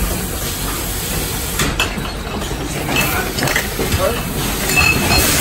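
Sparkling-wine disgorging line running: a steady mechanical hiss and clatter, with glass bottles clinking along the conveyor and scattered clicks from the machine.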